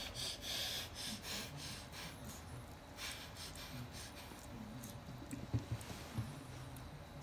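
A small dog licking and nibbling at another dog's head and neck fur: a run of quick, wet clicking licks at about three a second for the first few seconds, then a few soft low knocks a little past halfway.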